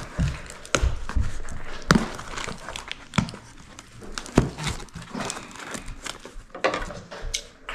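Cardboard shipping box being opened by hand: flaps and the plastic wrapping inside rustling and crinkling, with irregular knocks and taps against the table.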